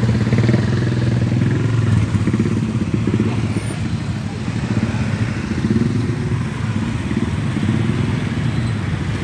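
A motor vehicle engine running steadily at a low, even speed, its level swelling and easing slightly.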